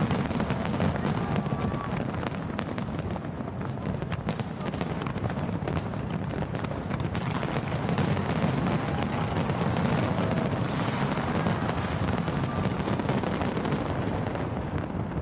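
A large fireworks display: a rapid, dense string of bangs and crackles over a continuous low rumble, with no break.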